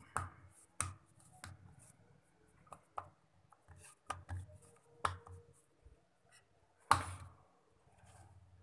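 Hands working a ball of dough on a rolling board: a string of irregular sharp taps and knocks, the loudest about seven seconds in, with soft handling noise between them.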